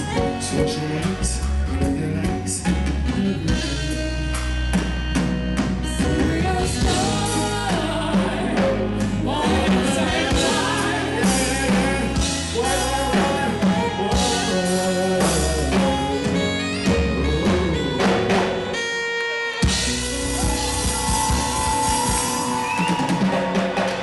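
Live reggae band playing, drum kit, bass guitar and keyboards, with voices singing over it. About three quarters of the way through, the bass and drums drop out for a moment before coming back in.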